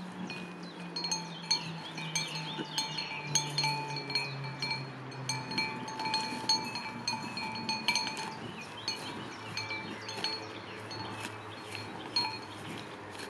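A small metal bell or chimes clinking and tinkling irregularly, many quick strikes ringing on the same few pitches, over a low steady hum that steps down in pitch.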